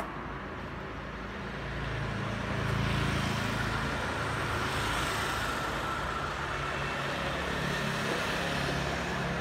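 Motor vehicle traffic on a street: a steady low engine hum, with motorbikes passing close by. It is loudest about three seconds in.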